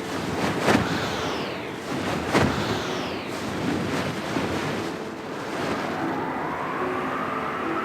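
Rushing wind buffeting the microphone during paragliding aerobatics, with a sweeping whoosh about every second and a half in the first half. It then settles into a steadier rush with a faint rising whistle.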